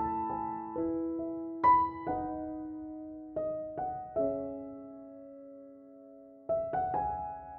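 Slow, soft piano music: single notes and chords struck and left to ring out, with one chord fading for a couple of seconds before new notes come in near the end.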